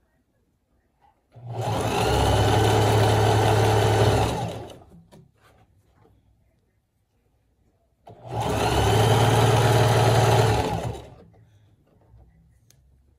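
Sewing machine stitching in two runs of about three seconds each, starting about a second in and again about eight seconds in, each slowing to a stop at the end. Faint handling sounds from the fabric fall between the runs.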